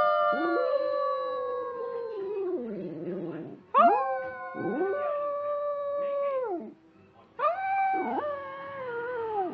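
Small shaggy white dog howling: three long, drawn-out howls, each held steady and then sliding down in pitch at its end, with short breaks between them.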